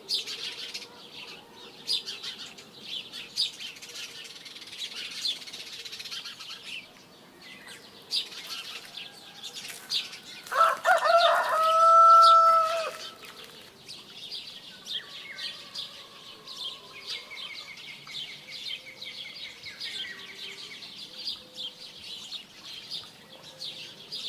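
Small birds chirping busily, with a rooster crowing once, loud and long, about halfway through.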